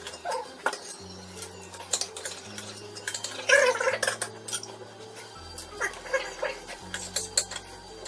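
Forks and spoons clinking against plates and mussel and clam shells at the table, with background music carrying a slow stepping bass line. A brief loud vocal sound about halfway through.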